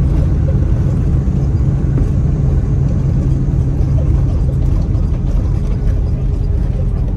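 Steady low rumble inside an Airbus A330-300 cabin as the airliner rolls on the ground after landing, its Rolls-Royce Trent 700 engines running at low power.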